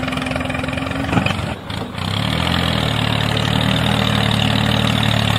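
Tractor engine running: a steady hum for about the first second, a brief dip, then a lower, evenly pulsing engine idle from about two seconds in.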